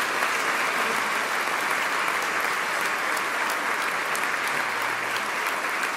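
Concert audience applauding, a dense and steady clapping at the end of a song.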